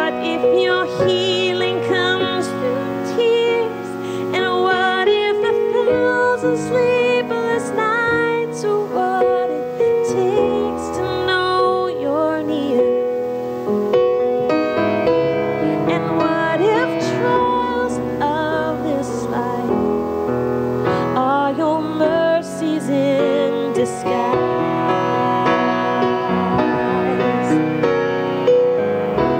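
A woman singing a slow, gentle ballad over her own grand piano accompaniment, with long held notes and vibrato in the voice.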